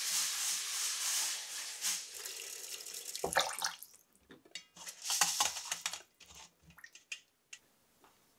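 Water running from a kitchen tap into a sink, easing off about two seconds in. Then come a few knocks and a second short run of water about five seconds in, with scattered clicks after it.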